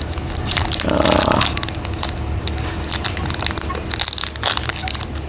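Crinkling and clicking of plastic packaging and small camera accessories being handled, with a denser rustle about a second in.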